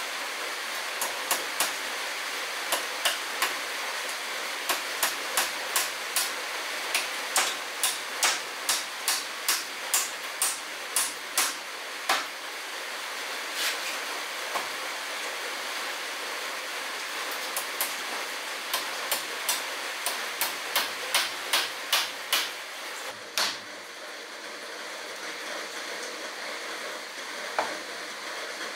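Hammer blows on wooden wall cladding boards, nailing them up: runs of sharp strikes about two a second, with a pause of a few seconds in the middle, over a steady hiss.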